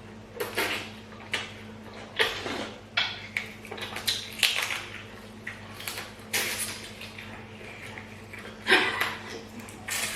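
Close-up mukbang eating sounds: slurping and sipping pepper soup and smacking the mouth, with light knocks of dishes, in irregular short bursts, the loudest near the end.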